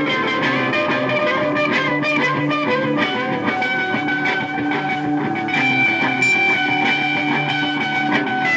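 Electric guitar played live through an amplifier: a dense wash of ringing notes, settling into long held tones in the second half.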